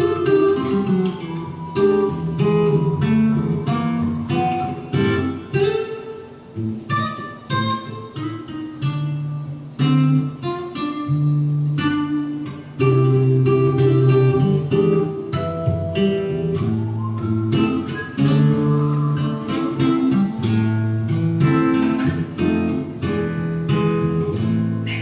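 Acoustic guitar music, plucked notes over a steady bass line.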